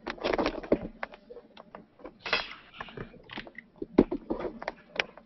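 Irregular small clicks and knocks with short bursts of rustling; the loudest knock comes about four seconds in.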